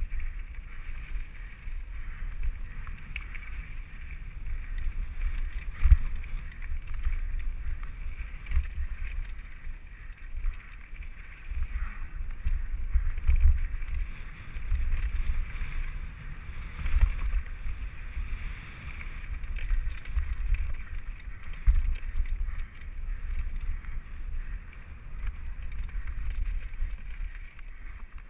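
Mountain bike riding fast down a gravel trail, heard through a helmet camera: wind rumbling on the microphone over the steady hiss of tyres rolling on gravel, with a sharp thump about six seconds in.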